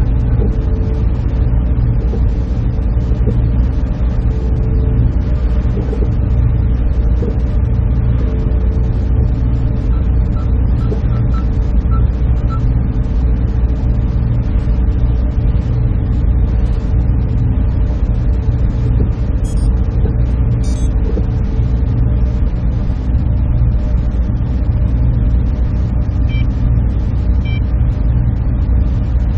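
Server room ambience: the steady, even drone of server cooling fans and air handling, low and rumbling, with a constant hum over it. A few faint short high beeps come about ten seconds in, and a couple of faint clicks later on.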